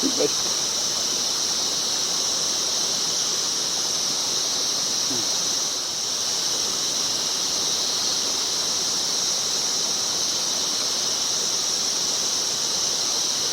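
A steady, high-pitched drone of insects, unbroken throughout.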